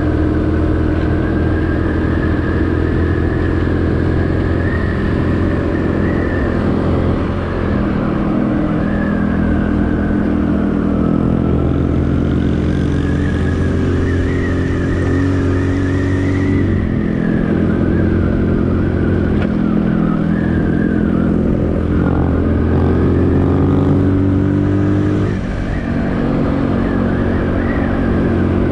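Small single-cylinder 125cc motorcycle engine running under way, its pitch rising and falling with the throttle, climbing steadily twice and dropping sharply near the end as the revs come off.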